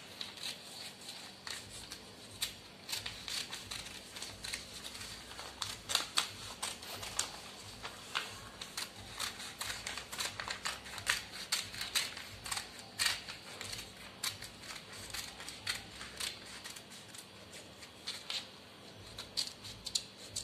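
Scissors cutting through newspaper: an irregular run of short, crisp snips as the blades work along a curved pattern line.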